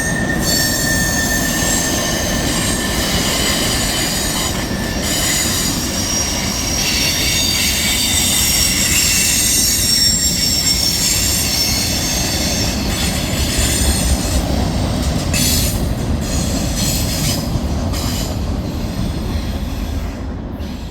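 Freight train rolling past: a steady rumble of cars on the rails with high-pitched wheel squeal, several shrill tones wavering together, and a few knocks later on.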